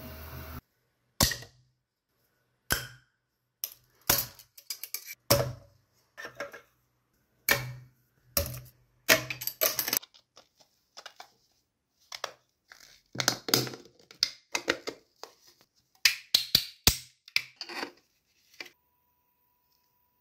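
Hard plastic clicks, knocks and scrapes as large 3D-printed parts are pushed and snapped together, about a dozen sharp sounds, some in quick clusters, with dead silence between them.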